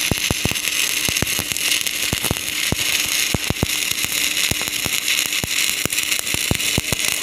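Stick-welding (SMAW) arc burning on a 3.2 mm LB-52U low-hydrogen electrode: a steady hiss with frequent sharp crackles and pops.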